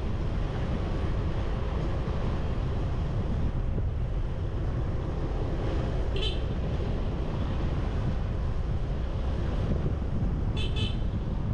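Wind buffeting the microphone and road noise on a motorbike ride through traffic, with a small high-pitched vehicle horn tooting once about six seconds in and twice in quick succession near the end.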